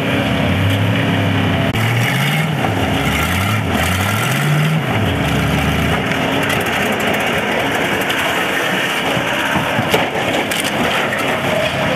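An engine revving up and down several times, then steady heavy-machinery noise with crunching and scraping as a backhoe loader pushes a wrecked demolition-derby car.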